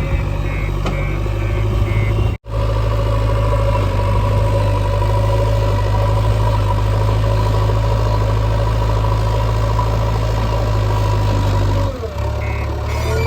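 Diesel engine of a JCB 3DX backhoe loader running steadily under work. The sound cuts out for an instant about two seconds in. Near the end the engine note dips and a repeated beeping starts.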